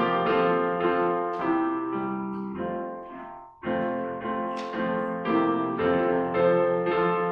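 Piano playing slow, sustained chords as quiet background music. The playing fades almost to nothing about three and a half seconds in, then picks up again.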